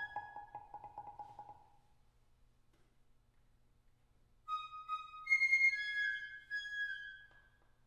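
Contemporary chamber music in imitation of birdsong. A fast repeated mallet tremolo fades out, then after a pause comes a phrase of held, whistled, flute-like notes that step and slide slightly downward.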